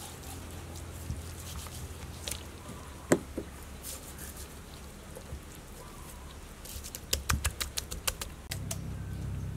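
Hands rubbing salt into the skin of a scored whole fish on a wooden chopping board, with light scratchy rubbing and patting. There is one sharp tap about three seconds in and a quick run of taps near the end.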